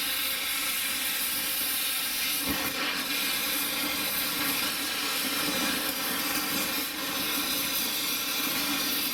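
Oxy-acetylene torch flame hissing steadily as it heats and cuts off the rusted-on lower bolt head of a stabilizer link.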